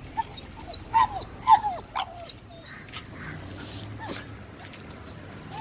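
A dog whining: short high whines that drop in pitch, four in quick succession over the first two seconds and one more about four seconds in.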